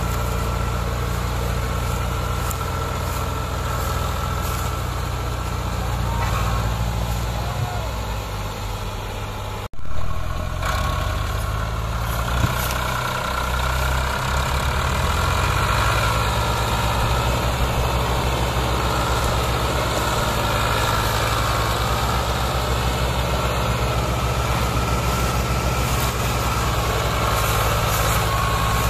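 Ford 3610 tractor engine running steadily under heavy load as it hauls a towering sugarcane trolley. There is a momentary break in the sound with a sharp knock about ten seconds in.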